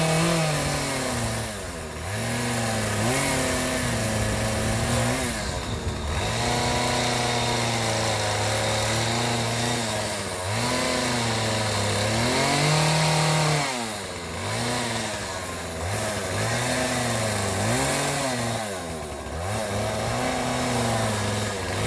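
A motor-driven power tool running, its pitch dipping and rising again every second or two as it takes load and frees up.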